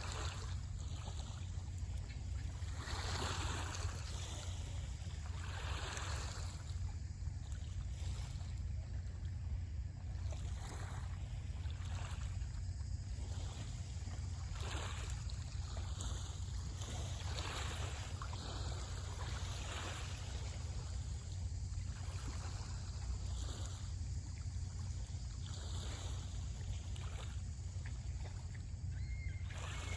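Small Lake Ontario waves washing in, a swell of splashing noise every two to three seconds, over a steady low rumble of wind on the microphone.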